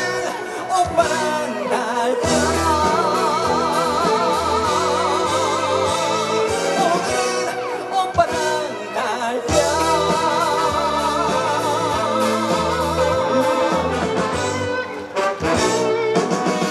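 Korean trot music over a PA: the instrumental break of the song, a steady bass beat under a lead melody held in long notes with a strong, wavering vibrato.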